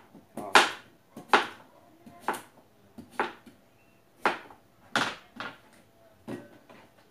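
Knife chopping through pumpkin onto a tabletop: about ten sharp, irregular cuts, roughly one every half second to second.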